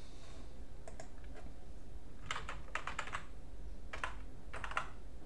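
Typing on a computer keyboard: short keystroke clicks, a few at a time in small irregular clusters.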